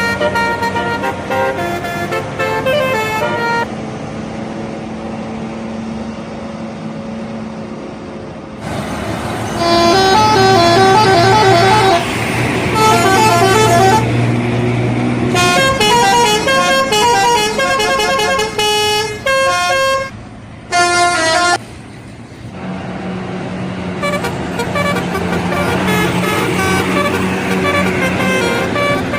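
Indonesian bus 'telolet' horns: multi-tone musical air horns playing quick runs of notes over the bus engines' running. Several horn passes follow one another, loudest around the middle.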